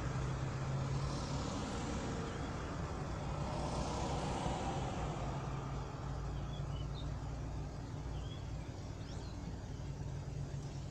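A car idling while stopped, heard from inside the cabin as a steady low hum. Other vehicles swell past about a second in and again around four seconds. A few faint, short, high chirps come through in the second half.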